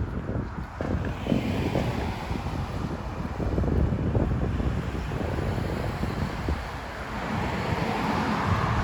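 Wind buffeting the microphone in uneven gusts, over a steady outdoor rushing noise.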